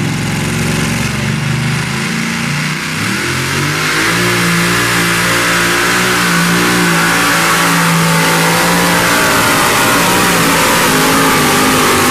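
Supercharged engine of a 2WD pulling truck running hooked to the sled, then revving up about three seconds in and holding steady at high revs under full load as it drags the weight sled.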